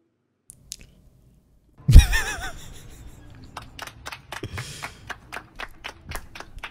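A loud sudden sound with a wavering pitch about two seconds in, then a run of sharp rhythmic hand claps, about three or four a second.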